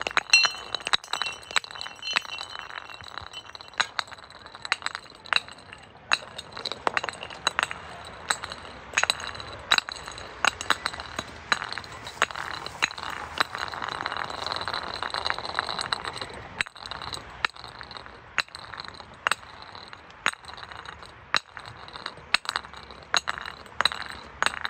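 Glass clinking against glass: a fast, irregular run of sharp chinks with bright ringing tones, growing denser and steadier for a few seconds around the middle.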